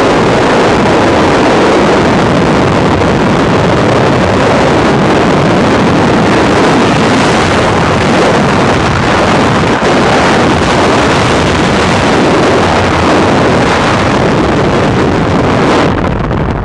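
Freefall wind buffeting a camera's microphone, loud and steady, dropping away near the end as the parachute opens.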